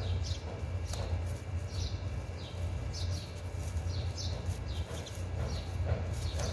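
Small birds chirping again and again, each call short and falling in pitch, over a steady low hum, with a couple of soft clicks.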